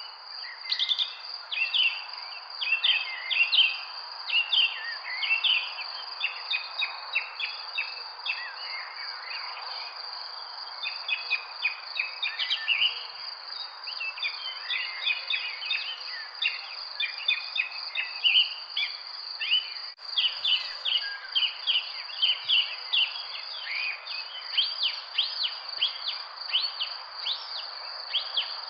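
Birds chirping and singing in rapid short notes over a steady high-pitched insect trill, typical of crickets, with an even background hiss underneath.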